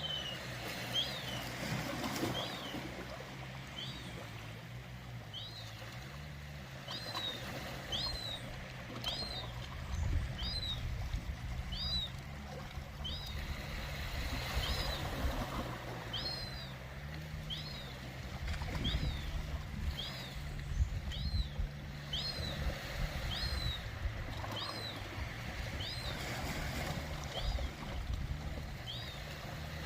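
Ocean water washing with a low rumble underneath, while a small bird chirps over and over, about one short chirp a second.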